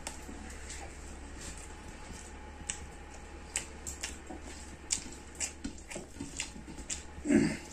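Close-up eating sounds: irregular wet clicks and smacks of chewing and of fingers picking meat off roasted buffalo bones, with one louder, longer smack near the end.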